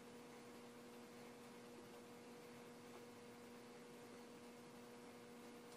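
Near silence: room tone with a faint steady hum and hiss.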